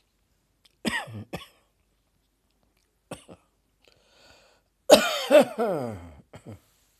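A person coughing in a fit brought on by a tickle in the throat. There are two or three coughs about a second in and a single short one near three seconds. The loudest burst comes near the end, a harsh cough that trails into a falling vocal sound, followed by two small coughs.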